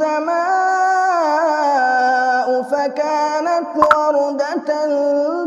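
Quran recitation in Arabic, chanted melodically by a single voice in long drawn-out notes that slide and waver in pitch. A single sharp click cuts in just under four seconds in.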